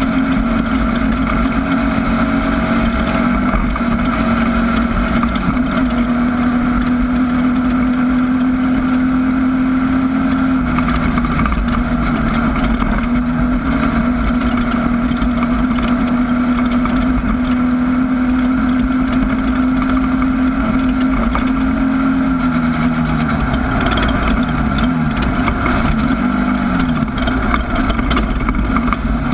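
Air-cooled 1600cc Volkswagen engine of a Class 1600 off-road race car running at steady high revs. Near the end the revs drop and rise several times.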